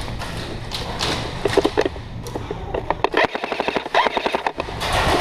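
Airsoft gun firing: a few separate shots, then a rapid full-auto burst of about a second near the middle, a fast even run of sharp clicks.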